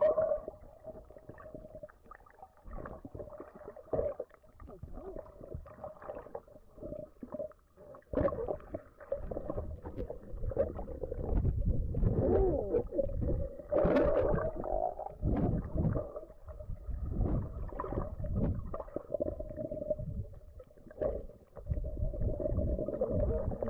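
Muffled water sound heard by a camera under the water: irregular gurgling and low rumbles of moving water, with a faint steady hum. It grows busier and louder from about eight seconds in.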